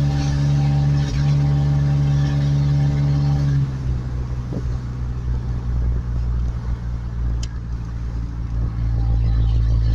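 1991 Ford Ranger pickup's engine running with a steady hum, then its revs drop to a lower, rougher rumble about three and a half seconds in.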